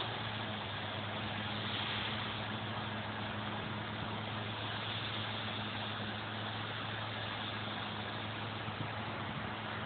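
A steady, low machine hum over a constant hiss, unchanging throughout.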